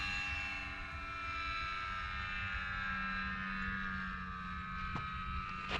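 The electric motor and propeller of a Dynam Cessna 188 RC plane in flight, a steady high whine that sinks slightly in pitch as it goes. A low wind rumble sits under it, with two small clicks near the end.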